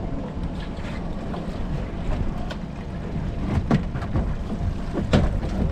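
Small fishing boat's engine running under wind buffeting on the microphone, with a few knocks between about three and a half and five seconds in as a lobster pot is hauled aboard over the gunwale.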